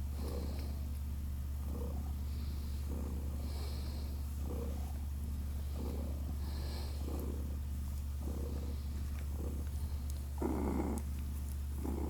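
Cat purring steadily, with short rasping pulses about once a second and a louder one about ten and a half seconds in.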